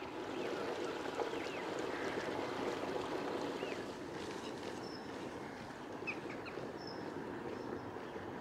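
Outdoor background of steady low rushing noise, a little louder in the first half, with a few short high bird chirps scattered through it.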